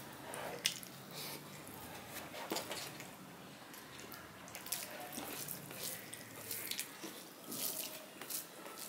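Fingers mashing and mixing cooked rice with a mashed vegetable paste on a steel plate: soft wet squishing with scattered light clicks.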